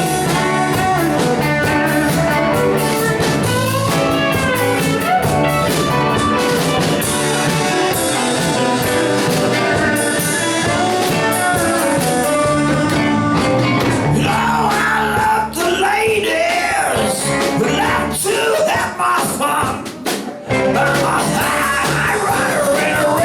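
Live rock-and-roll band playing an instrumental solo break over a steady bass and drum beat, with a lead line bending in pitch through the middle.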